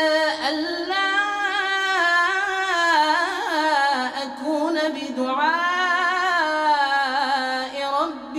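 A male reciter's voice chanting the Quran in a high, melodic style. He holds long notes that glide and ornament in pitch, with short breaks about four seconds in and near the end.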